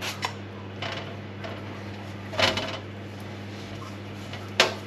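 Short hissing sprays from a hand-pump olive oil mister, a few separate bursts spread out over several seconds, with handling of potatoes on a metal baking tray between them. A steady low hum runs underneath.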